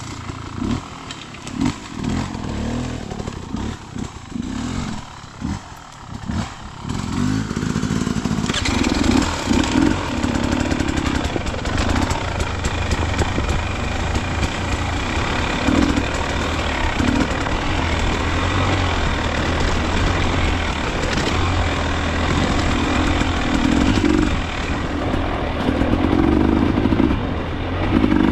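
Dirt bike engine blipped and chugging unevenly at low throttle for the first several seconds, then pulling steadily under load with repeated surges of throttle.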